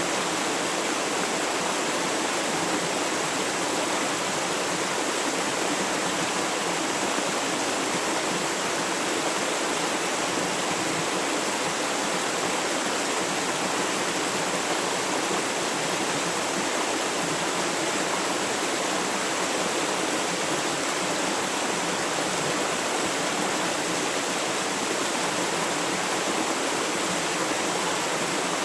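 Steady rushing of flowing river water, an even unbroken sound that stays level throughout.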